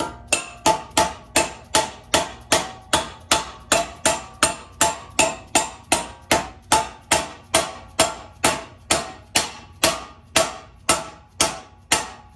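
A mallet strikes an old wheel bearing race, driving a new inner seal into a Toyota 4Runner's front spindle. It makes a steady run of sharp, ringing metal knocks, about three a second, worked around the seal until it is seated.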